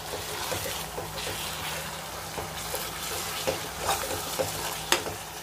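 A spoon stirring and scraping thick, cooking beetroot halwa around a non-stick pan, over a low sizzle, as the mixture thickens. There is one sharp tap near the end.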